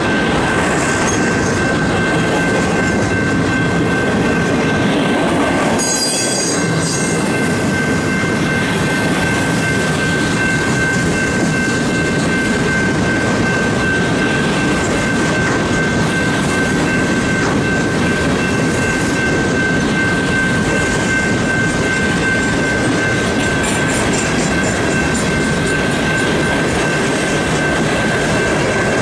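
Freight train rolling past at close range: a steady rumble and clatter of steel wheels on the rails as the freight cars go by, with a steady high-pitched tone ringing above it.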